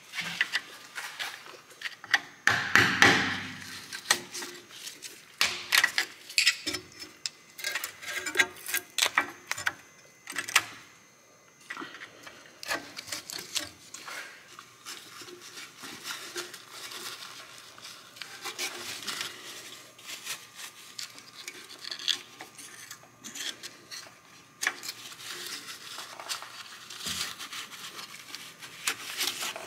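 Irregular metallic clicks, taps and scrapes of a small hand pick working the rubber boot off the rear lower knuckle bushing on a Saab 9-5's rusty suspension arm. A louder burst of scraping noise comes about three seconds in.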